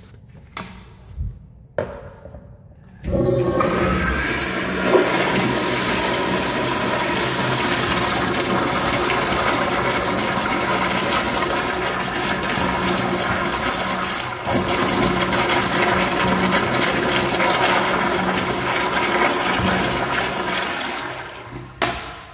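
Toilet flushing: after a few small clicks, a loud rush of water starts suddenly about three seconds in and runs steadily for some eighteen seconds, then dies away near the end as the bowl refills.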